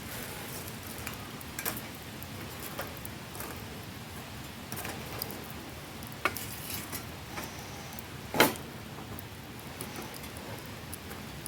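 Scattered small clicks and clinks of camp gear being handled over a steady hiss, with one louder knock about eight seconds in.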